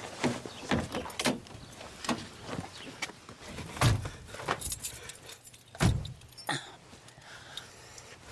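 Getting into a car: keys jangling and small clicks of handling, then two car doors slamming shut with heavy thuds, about four and six seconds in.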